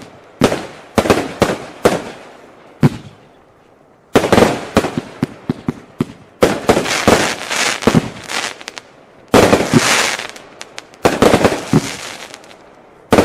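Fireworks cake (multi-shot battery) firing in a series of volleys, each a cluster of sharp bangs that starts suddenly and trails off, with short pauses between them and a longer lull about three seconds in.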